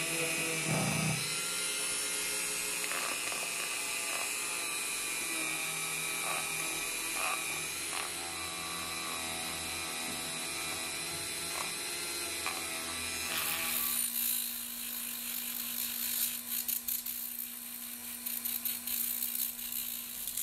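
Hand-held rotary tool spinning a small wire brush against metal, scrubbing rust off old hand-pump parts. It runs as a steady high-speed whine, and about 14 seconds in the sound changes to a rougher, uneven scrubbing.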